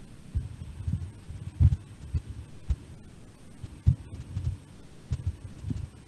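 Irregular soft low thumps, about one or two a second, some with a sharp click on top, over a faint steady hiss from the microphone.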